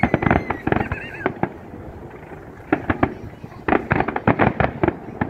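Fireworks display: aerial shells bursting in dense clusters of sharp bangs and crackles. There is a lull about a second and a half in, then further runs of bangs, the densest near the end.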